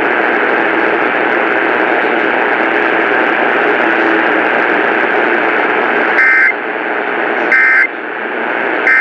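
Steady radio static hiss, then three short Emergency Alert System data bursts about 1.3 seconds apart, starting about six seconds in: the warbling two-pitch end-of-message code that closes the alert.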